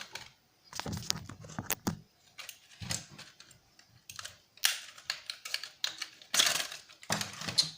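Clicks, scrapes and crackles of the brittle plastic and small parts of a toy quadcopter drone being pried and gripped apart with pliers, coming in several short irregular clusters.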